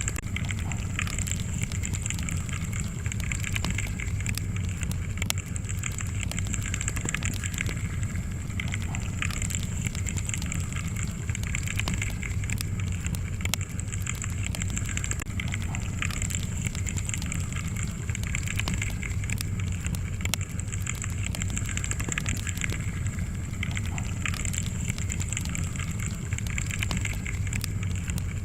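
Wood fire burning steadily, crackling with a constant scatter of small pops over a low, even rumble.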